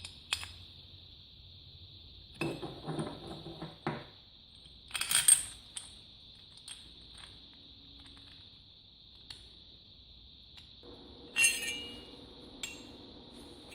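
Metal parts and tools being handled on a workbench: scattered clinks and knocks, a short rattle, and one louder metallic clink about five seconds in.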